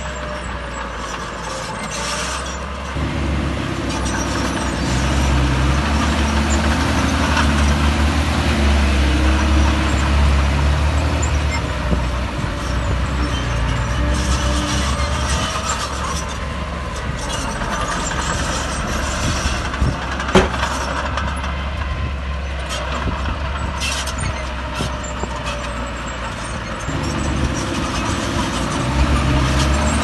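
Heavy earthmoving machine's diesel engine running under load. It pulls harder from about three seconds in, eases in the middle and works up again near the end, with a single sharp knock about two-thirds of the way through.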